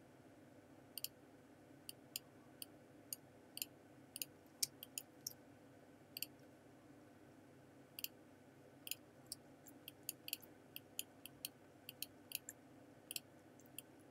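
Computer mouse clicking: about two dozen short, sharp clicks at irregular intervals, some in quick pairs, over a faint steady background hum.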